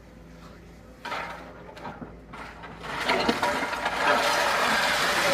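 Excavator demolishing a building: a low engine hum, then about a second in a sudden scrape and crunch, and from about three seconds a loud, sustained rush of crumbling masonry and falling debris.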